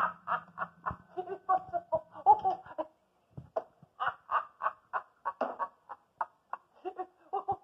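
A person laughing in runs of quick, repeated 'ha' bursts, broken by short pauses.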